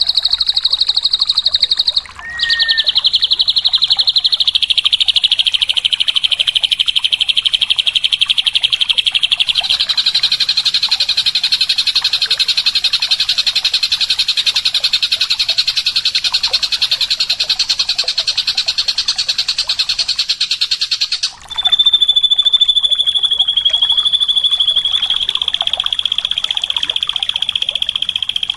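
Drongo (srigunting) song: a long, very fast buzzing trill, high-pitched and unbroken. It breaks off briefly about two seconds in and again about 21 seconds in, with the pitch shifting a little between sections.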